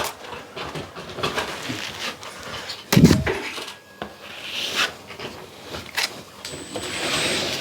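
Scraping and light knocks of things being handled, with one heavy thump about three seconds in.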